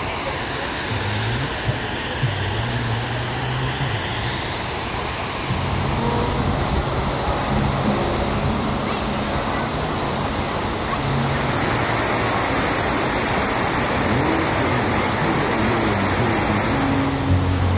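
Water park ambience: a steady rush of water from waterfalls and pools, with background music whose low bass notes change every second or so. A brighter hiss of water comes in during the second half.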